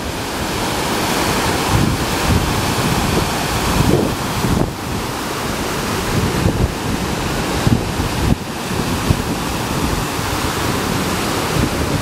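Indian Ocean surf breaking and washing up the beach in a continuous rush, with wind buffeting the microphone.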